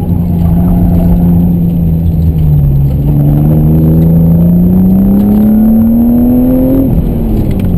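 BMW E36 M3's straight-six engine under acceleration, heard from inside the cabin. Its pitch sags slightly for the first few seconds, then climbs steadily for about four seconds. About seven seconds in, the revs suddenly start to fall.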